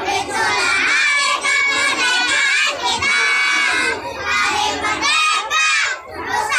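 A choir of young children singing loudly together in unison, phrase by phrase with short breaks between lines.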